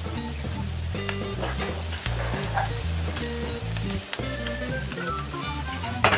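Rice-flour and coconut-milk batter sizzling in the cups of a hot kanom krok pan, under background music, with a brief loud click near the end.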